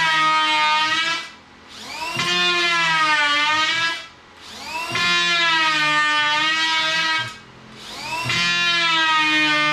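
Handheld electric power tool cutting a boat floor board in bursts. Each burst spins up and runs with a wavering whine for two to three seconds before a short pause, about four times in all.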